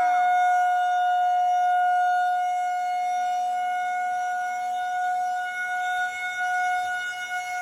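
Federal Signal 2001-130 rotating electromechanical tornado siren sounding a test: one steady, loud tone that holds its pitch throughout. Its level slowly sags and wavers in the last couple of seconds.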